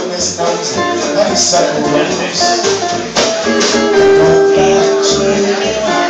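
Live acoustic string band playing, with mandolin, acoustic guitar, upright bass and light drums. A steady beat of sharp percussion hits runs through, and one note is held for nearly two seconds past the middle.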